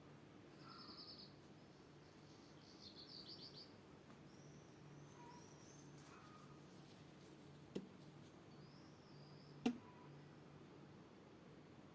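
Faint songbird calls: two short rapid trills in the first few seconds, then scattered chirps, over a steady low hum. Two sharp clicks come near the end; the second is the loudest sound.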